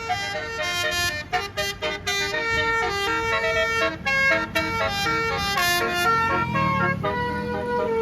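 Basuri multi-note telolet air horn on a tour bus, its roof-mounted trumpets playing a quick melody in short stepped notes, several tones sounding together.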